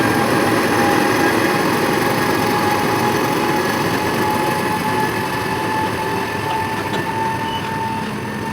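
Heavy freight train hauled by twin WAG-9HC electric locomotives accelerating away: a steady rumble of wheels on rail with a thin whine slowly rising in pitch. It grows slightly quieter near the end.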